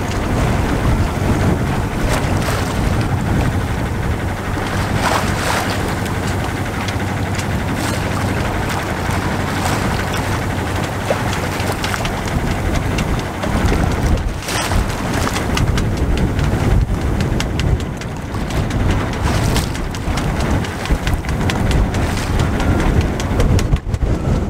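Wind buffeting the microphone in gusts over choppy sea water splashing along the hull of a sailboat under way.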